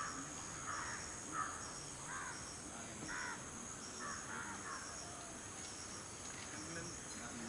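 Steady high-pitched drone of insects, with a string of short bird calls, about one a second, over it.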